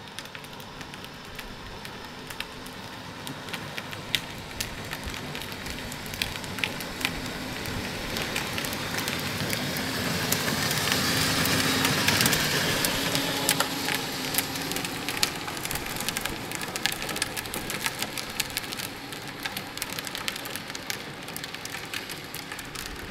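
Hard plastic wheels of a child's ride-on toy car rolling over asphalt: a gritty, crackling hiss full of small clicks. It grows louder as the car passes close, about halfway through, then fades as it moves away.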